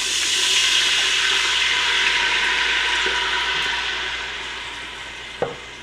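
Red wine poured into a hot stainless steel stockpot, hissing and sizzling as it hits the seared fond and deglazes the pan. The sizzle is loudest in the first couple of seconds and fades steadily, with one light knock near the end.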